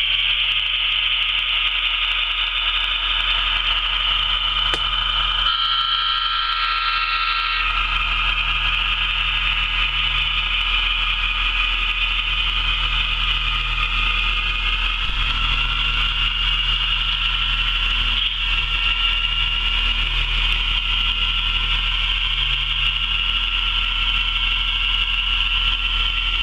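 HO scale model train running past on the layout track with a steady high whine and low hum. About six seconds in, a tone of several evenly spaced pitches sounds for about two seconds.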